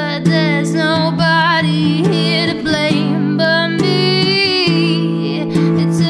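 A woman singing held, wavering notes over a strummed acoustic guitar.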